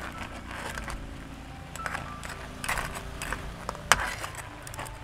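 Metal spatula scraping and knocking against a wok while crabs are stirred, the shells clattering; several sharp clacks, the loudest about four seconds in.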